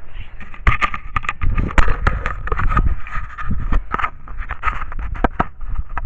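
Dry leaf litter crunching and crackling with close, irregular knocks from footsteps and handling right at a trail camera's microphone, over a steady thin whine.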